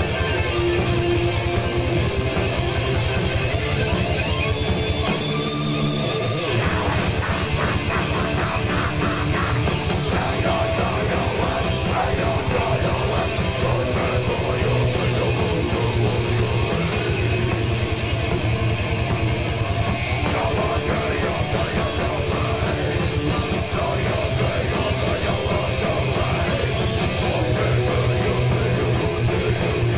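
Heavy metal band playing live: distorted electric guitars, bass and drums at full volume. About five seconds in, the bass drops out for a second or so, then the full band comes back in.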